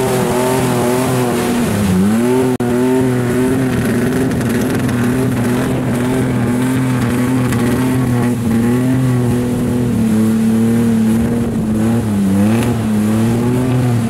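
Small pickup truck's engine held at high revs as it churns through a mud pit with its wheels spinning in the mud. The revs sag briefly about two seconds in and again near the end, then climb back.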